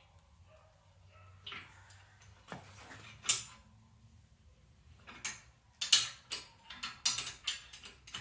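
Sharp metal-on-metal clicks and clinks from a manual bench metal bender as 5/16-inch round steel rod is bent around its A2 tool-steel angle block and the bent piece is worked out of the pins. There is one loud clank about three seconds in, then a quick run of clinks over the last three seconds.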